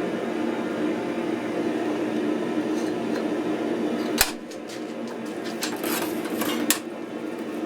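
Steady mechanical drone of a workshop forge running, with two sharp metallic clicks, one about four seconds in and another a couple of seconds later.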